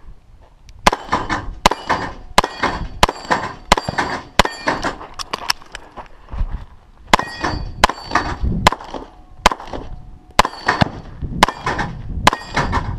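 Rapid pistol shots fired during a practical shooting course of fire, about one to two shots a second, with a pause of about a second and a half a little before the middle. Steel targets ring after some hits later in the string.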